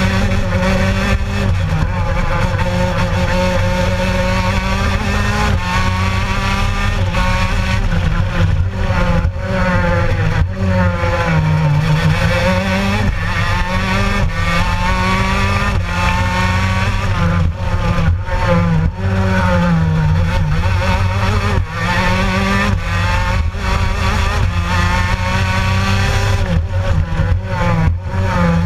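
Racing kart's Gilera engine heard on board at full race pace, its pitch repeatedly climbing on the straights and dropping sharply as the driver lifts for corners.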